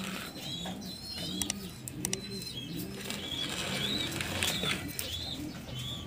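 Domestic pigeons cooing, a steady run of low coos, with short high chirps repeating over them.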